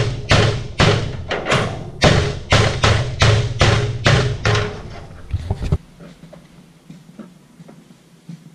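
Background music with a steady, percussive beat over a deep bass line, cutting off abruptly about six seconds in; faint room sounds follow.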